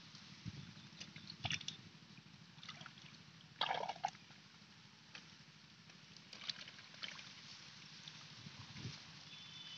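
Hands groping through shallow muddy water, making faint, scattered splashes and sloshes, with one louder slosh a little under four seconds in.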